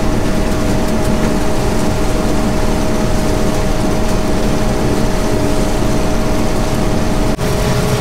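1975 John Deere combine running while harvesting corn: a steady engine and machinery drone with a constant whine. One of the whine tones drops out after a brief dip about seven seconds in.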